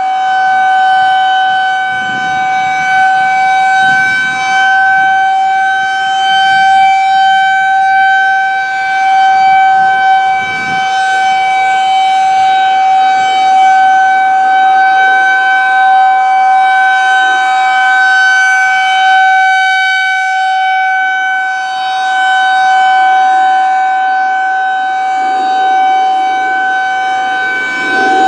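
Federal Signal 2001-130 rotating electromechanical outdoor warning siren sounding a steady alert tone. It holds one pitch while its loudness swells and fades as the rotating horn turns toward and away.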